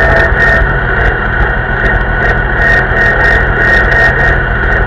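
Vintage tractor engine running steadily as the tractor drives along the road, heard close up from the driver's seat, with a steady high whine and frequent light rattling over the engine note.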